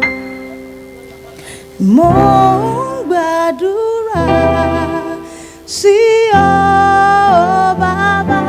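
Live gospel worship music: held accompaniment notes fade, then a singer enters about two seconds in and sings two long, wavering, wordless phrases over the accompaniment.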